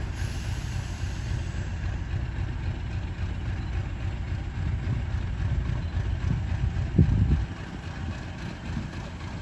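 Class 50 diesel-electric locomotive's English Electric 16-cylinder diesel engine running with a steady low rumble as the locomotive approaches slowly, with a short louder burst about seven seconds in.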